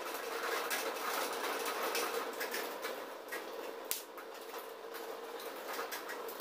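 Glass strips being slid and tapped into place on an MDF board, with light scrapes and knocks and one sharp click about four seconds in, over a steady background hiss.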